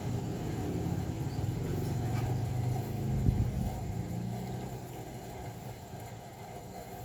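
Low rumble of a motor vehicle engine running, fading away over the last few seconds, with a single thump about three seconds in.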